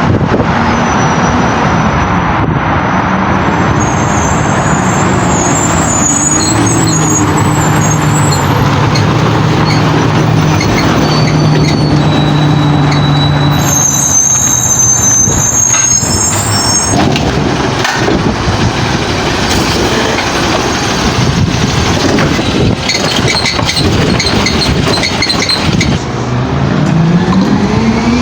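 Garbage truck's diesel engine running, with wind buffeting the microphone. The engine revs up near the end.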